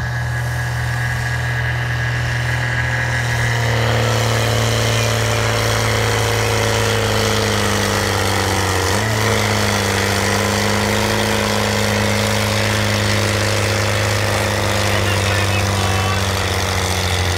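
JCB Fastrac tractor's diesel engine running hard under load while pulling a weight-transfer sled. It is steady in pitch, grows louder about four seconds in, and dips briefly about nine seconds in before recovering.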